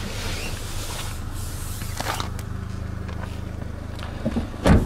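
Steady low hum inside a car cabin with faint movement noises, then one heavy thump near the end.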